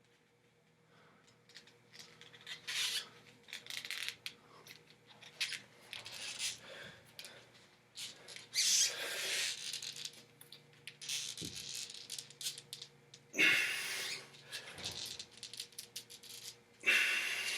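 A person straining to bend a 60-penny nail by hand, breathing in short forceful hissing exhales, the strongest about nine, thirteen and seventeen seconds in, with small rubbing and handling noises between them.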